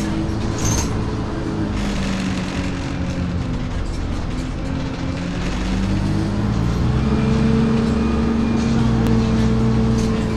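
Alexander Dennis Dart SLF single-deck bus heard from inside the passenger saloon while driving: a steady engine and drivetrain drone with road noise. About six seconds in, the engine pitch rises and the sound grows louder as the bus picks up speed.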